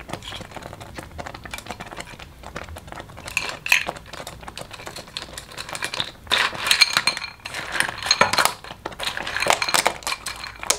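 Thick rice porridge bubbling in a steel pan with a run of small pops. About six seconds in, a louder clatter of clam shells clinking against each other and the bowl begins as the clams are tipped into the pot.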